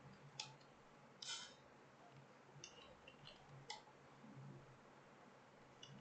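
Faint, scattered computer keyboard key clicks, about seven irregular taps with a pause in the middle.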